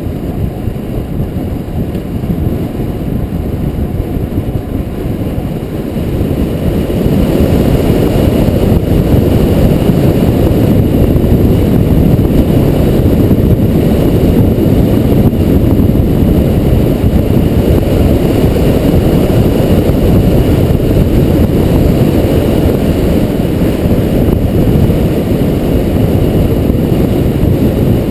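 Wind rushing over the microphone of a bicycle-mounted camera on a fast downhill run, a loud low rush that grows louder about six seconds in, as the speed picks up, and then holds steady.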